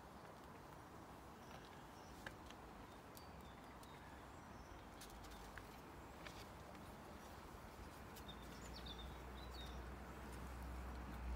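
Hushed outdoor quiet with a few faint bird chirps and scattered small clicks; a low rumble rises over the last few seconds.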